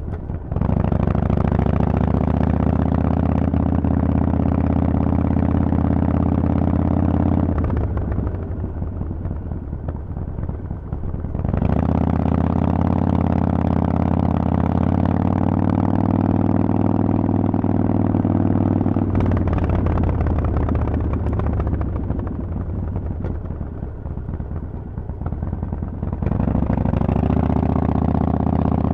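Harley-Davidson Forty-Eight's 1200 cc air-cooled V-twin through Vance & Hines exhaust pipes, running loud under throttle while riding. It eases off twice for several seconds, about eight seconds in and again about twenty seconds in, as the throttle is rolled off, then pulls hard again.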